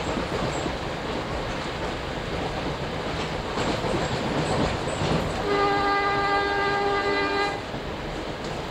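Train horn sounding one steady blast of about two seconds, a little past halfway, over the steady running noise of a New Jersey Transit commuter train heard from inside the car.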